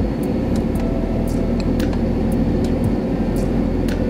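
Airbus A320neo cabin noise while taxiing after landing: a steady low rumble of engines and rolling gear, with scattered light clicks throughout.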